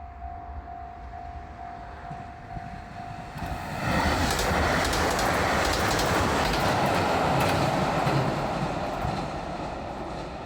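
Japanese level-crossing warning bell ringing in a steady repeating tone. About three and a half seconds in, a diesel railcar train passes close by, its wheels clacking over the rail joints, loud for several seconds and fading near the end.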